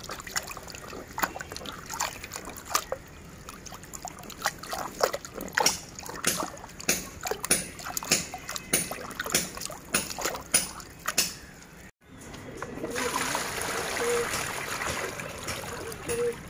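A hand swishing and splashing water with neem leaves in a plastic tub, many quick irregular splashes. About twelve seconds in it breaks off, and water is then poured from the tub into a shallow tray in a steady rushing stream.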